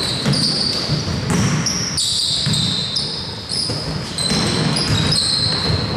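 Basketballs bouncing on a gym floor, irregular thuds amid general court noise.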